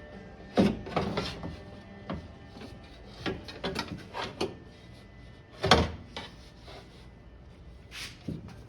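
Irregular knocks, taps and clunks of window glass and regulator parts being worked into a car door and lined up with the regulator clamps; the loudest knock comes about six seconds in.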